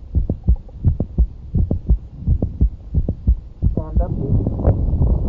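Heartbeat heard through a stethoscope, an even run of low thumps with a mid-systolic click between the first and second heart sounds, the click typical of mitral valve prolapse. A brief pitched sound comes near four seconds, and more background rustle follows.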